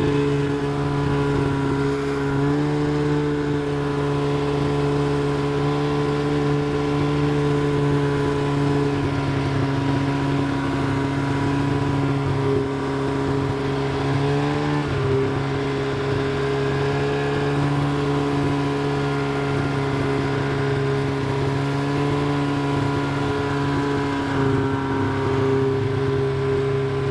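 Vehicle engine running at a steady speed while driving. Its pitch shifts slightly a couple of seconds in and again about halfway through.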